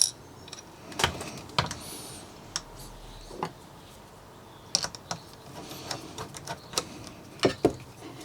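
Camera rig parts being handled and fitted together: a string of separate clicks and knocks as the camera is mounted into the cage.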